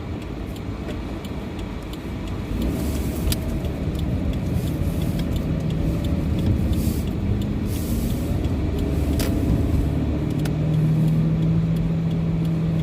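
Car engine and road noise, a steady low rumble that gets louder a couple of seconds in, with a steady low hum joining near the end.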